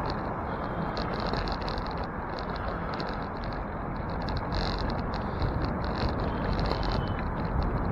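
Steady rolling noise of a bicycle on a city street, picked up by a camera mounted on the bike: road and tyre rumble, with a high, patchy rattle that comes and goes.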